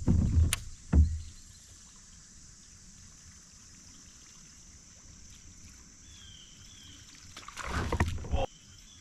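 A few hollow knocks and thumps on a kayak in the first second, then a quiet stretch with faint chirps, and a short rush of splashing water near the end that stops suddenly.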